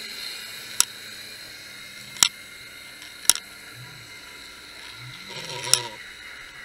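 Sharp clicks, four of them one to two seconds apart, over a steady hiss, heard through an underwater camera. The last click is the loudest and follows a brief rougher sound.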